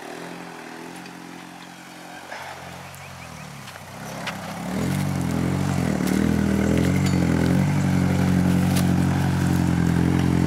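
1985 Toyota 4Runner's engine pulling at low, steady revs as the truck crawls up a rocky dirt trail, quieter at first and growing much louder about halfway through as it climbs closer.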